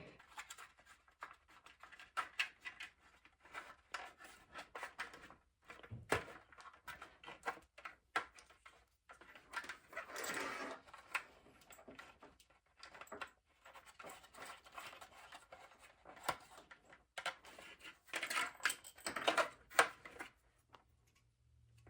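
Nuts being threaded onto bolts by hand during a lamp assembly: irregular light clicks, taps and scrapes of small parts being handled.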